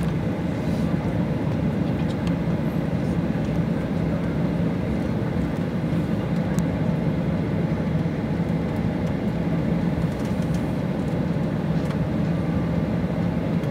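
Jet airliner's engines and airflow heard inside the passenger cabin while taxiing: a steady drone with a constant low hum.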